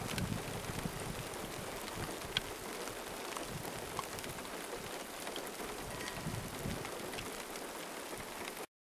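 Steady rain falling, a dense hiss dotted with small sharp drop ticks, one louder tick about two and a half seconds in. The sound cuts off suddenly near the end.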